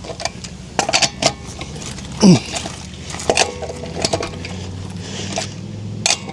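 Irregular metallic clinks and clatter of metal parts or tools being handled, over a faint steady low hum.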